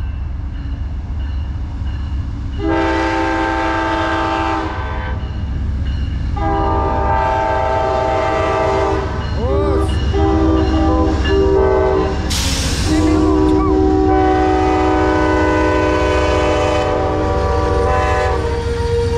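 Amtrak passenger locomotive's air horn sounding three long chord blasts as the train pulls in, over the steady rumble of the diesel locomotives and wheels on the rails. A brief hiss comes between the second and third blasts.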